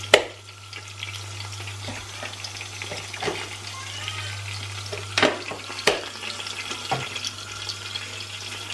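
Cumin seeds sizzling and crackling in hot oil, with a few sharp clicks: the loudest right at the start and two more about five and six seconds in. A steady low hum runs underneath.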